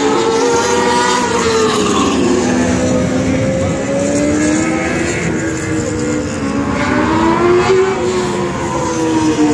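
Several TQ midget race car engines running on the track. Their pitch rises and falls as cars come past, once about two seconds in and again near the end.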